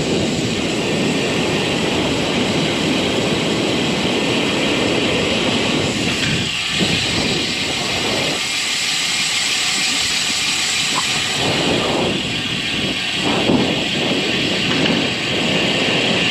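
Wind rushing over the microphone of a moving road bicycle, with tyre and road noise, swelling and easing in gusts.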